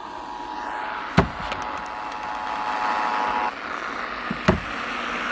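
FM radio on a weak, hissy signal playing the Emergency Alert System's two-tone attention signal, which cuts off about three and a half seconds in. Two sharp clicks, about a second in and near the end.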